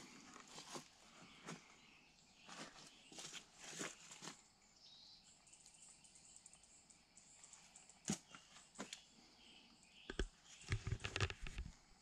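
Faint outdoor ambience: scattered light steps or rustles, a thin high chirping for a few seconds in the middle, and a cluster of low thumps near the end.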